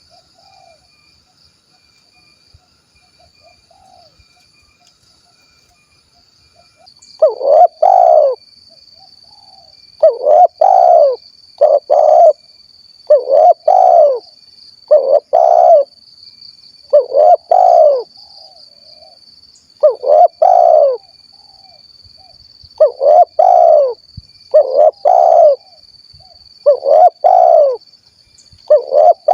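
Spotted dove (tekukur) singing its 'kuk 1' song: faint at first, then loud cooing phrases repeated every one to two seconds from about seven seconds in.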